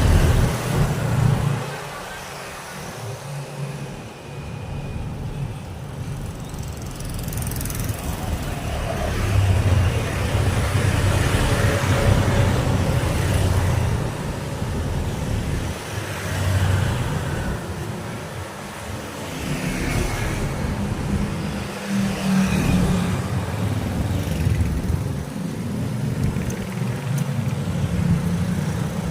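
Road traffic: motor vehicles passing one after another, the steady engine and tyre noise swelling as each one goes by and easing off between them.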